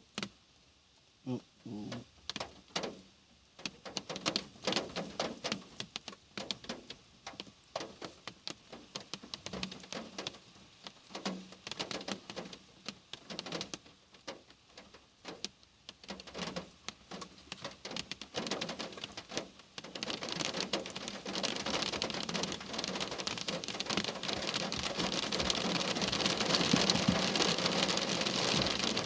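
Rain beginning: scattered single drops hitting a hard surface, coming faster and faster until, about twenty seconds in, they merge into a steady heavy downpour.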